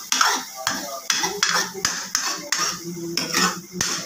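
Metal ladle scraping and knocking against a metal kadhai as thick masala gravy is stirred, about two or three strokes a second.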